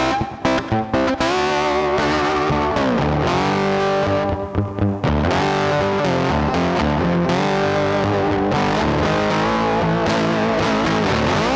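Background music: distorted electric guitar rock with sliding riffs and a steady driving level.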